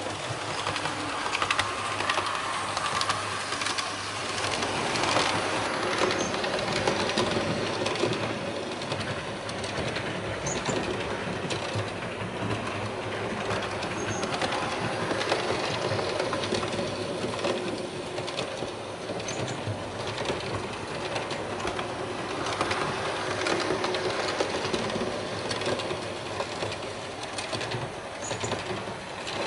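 Märklin H0 model trains (Ludmilla diesel locomotives hauling wagons) running on metal M-Track, climbing a viaduct: a continuous rolling noise with rapid clicking of wheels over rail joints and a faint motor whine.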